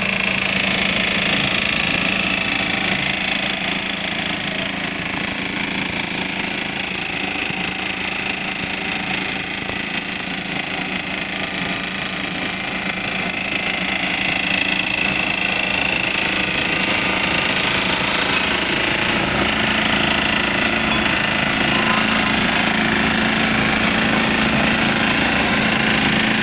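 Double-drum vibratory road roller running, a loud steady machine din with a low, even pulsing underneath.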